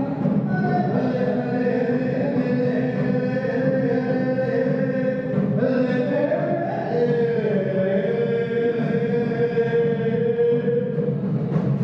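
Traditional Khasi chanted song: a man's voice holding long notes through a microphone and PA, with a hand drum beating along underneath.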